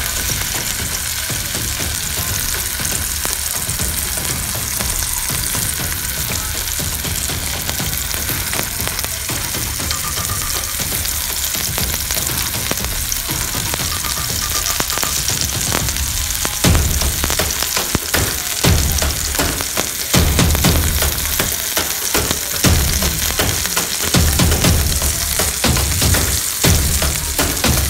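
A whole masala-coated fish shallow-frying in hot oil in a pan, sizzling steadily. A little past halfway, irregular low rumbles come in under the sizzle.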